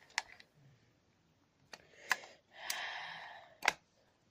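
Light plastic clicks and taps as AA batteries are pressed into a carbon monoxide alarm's battery compartment, four sharp clicks in all. A soft breathy rush lasting about a second comes between the last two.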